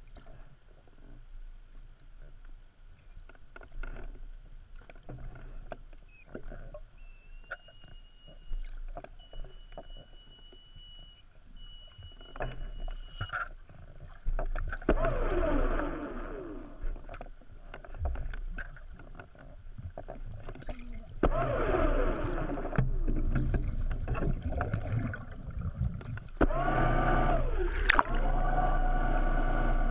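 Muffled underwater sound inside an action camera's waterproof housing: low water rumble and scattered knocks, a steady high whine for several seconds, then louder rushing, bubbling bursts with wavering pitch. Near the end it turns into a louder steady rush as the camera breaks the surface.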